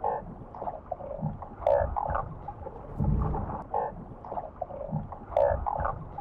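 Muffled underwater sound: irregular gurgling bursts and low thumps, with no high tones.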